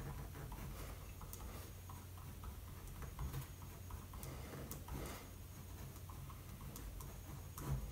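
Pen writing on paper: faint, irregular scratches and small ticks, over a steady low hum.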